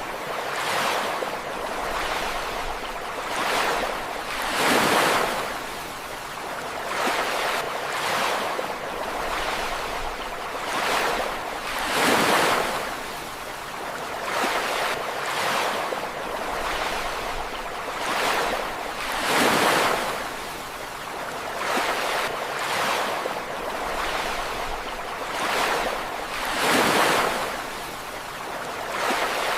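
Ocean waves breaking on a beach: a continuous rushing wash, with a bigger wave crashing about every seven seconds and smaller ones in between.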